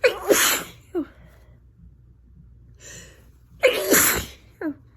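A person with a head cold sneezing twice, about three and a half seconds apart, in a sneezing fit. There is a sharp breath in just before the second sneeze, and a brief voiced sound right after each one.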